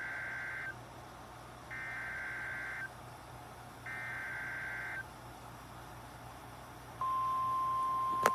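Emergency Alert System SAME header: three identical bursts of warbling data tones, each about a second long with a second's pause between, marking the start of a new alert. About seven seconds in, the steady single-pitch attention tone of the weather-radio alarm begins, with a sharp click just before the end.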